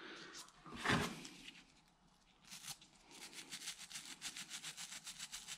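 A small brush scrubbing baked-on carbon deposits on an engine valve head, in quick scratchy strokes about five a second that start a couple of seconds in. The carbon is not coming off after the soak in household cleaner.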